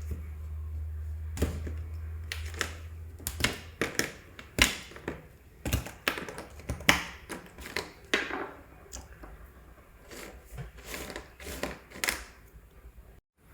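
Irregular clicks, taps and scrapes of a knife prising pieces of set ginger candy off a plate, the pieces knocking against the plate as they come away.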